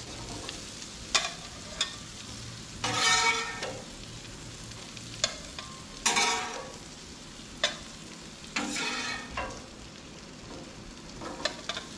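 Food sizzling on a Blackstone flat-top steel griddle while a metal spatula scrapes across the cooktop and taps on it, lifting asparagus off. Several sharp clicks and a few longer, louder scrapes come over the steady frying.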